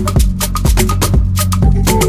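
Background music with a steady percussive beat over a deep, sustained bass.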